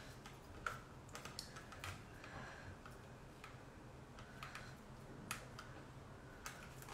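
Faint, irregular clicks and scrapes of a spatula working thick hummus out of a plastic food-processor bowl into a serving bowl.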